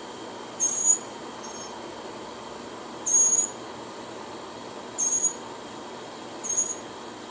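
Northern mockingbird calling: a short, high-pitched call repeated four times, about every one and a half to two seconds, with a fainter call in between.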